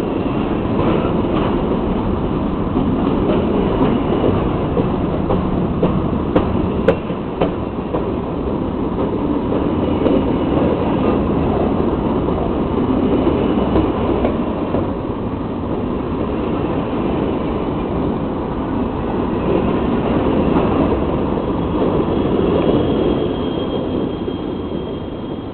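CSX freight train of grain cars rolling past, a steady rumble of steel wheels on the rails with a few sharp clicks over rail joints about six to seven seconds in and a faint high wheel squeal near the end.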